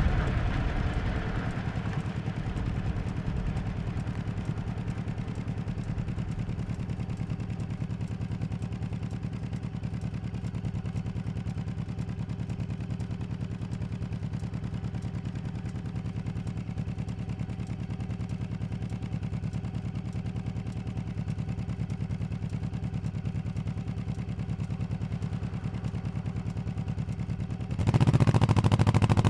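Honda 1100 cc motorcycle engine running at steady low revs with an even low pulsing note. Near the end it suddenly gets much louder as the throttle is opened.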